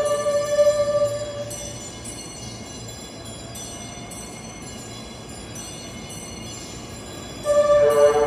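Musical horn of the E001 'TRAIN SUITE Shiki-shima' sounding held, bell-like tones that die away after about a second and a half. The train then runs slowly at low level, and the musical horn starts again suddenly near the end, louder as the train comes close.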